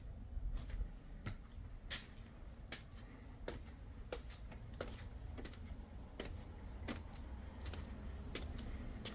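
Footsteps on stone steps, short taps at an even walking pace of about one and a half a second, over a low steady rumble.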